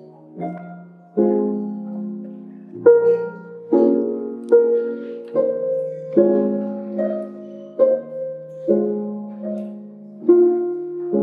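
Claviharp, a keyboard-played harp, sounding a slow, even sequence of plucked chords, roughly one a second, each struck and left to ring and fade.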